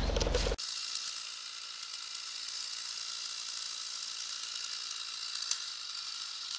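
A louder sound with a low hum cuts off suddenly about half a second in. A steady, high-pitched mechanical whir follows, made of several level tones.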